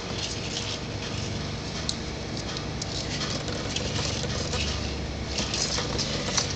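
Baby turtles' claws scrabbling on a plastic tub: a scattered run of light scratches and ticks, with a low hum underneath.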